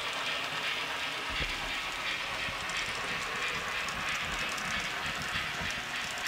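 TT-scale model steam locomotive and coaches running along layout track: a steady, even rattle and hiss of the wheels on the rails.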